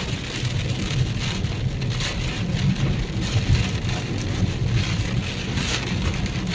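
Heavy downpour: rain falling and splashing, with many short crackly hits, over a steady low rumble.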